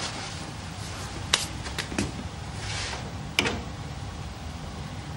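Mechanical clicks and knocks from a barrel organ's mechanism as it is set going, with no music yet: a handful of sharp clicks, the loudest about three and a half seconds in, over a low steady rumble.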